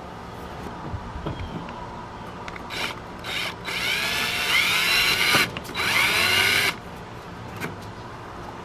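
Cordless drill drilling a hole into a plastic kayak to mount a stabilizer arm base. A few short blips of the trigger come first, then two longer runs of about a second and a half and a second, the motor rising in pitch as it spins up.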